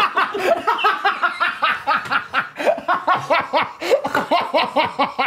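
Several people laughing hard, a long run of quick 'ha' pulses, about five a second.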